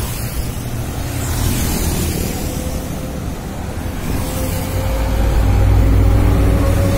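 Scania G 410 tractor unit hauling a loaded container passes close by, its 13-litre six-cylinder diesel rumble swelling from about four seconds in and loudest near the end. Before that, a motorcycle passes and general highway traffic noise fills the background.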